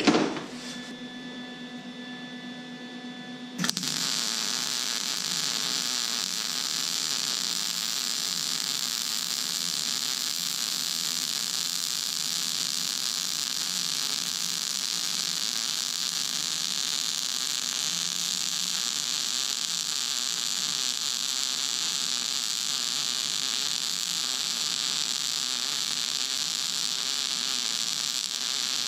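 Lincoln Weld-Pak 180HD wire-feed welder laying a fill pass on one-inch steel with .035 wire. After a few seconds of steady hum, the arc strikes about four seconds in and runs as a steady hiss for the rest.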